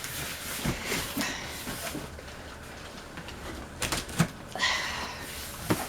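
Cardboard boxes being handled and pulled apart: rustling and scraping, with a few light knocks.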